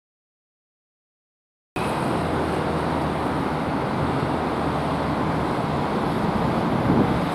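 Dead silence for nearly two seconds, then steady road traffic noise begins abruptly: motor vehicles running on a city street, with a low engine drone underneath.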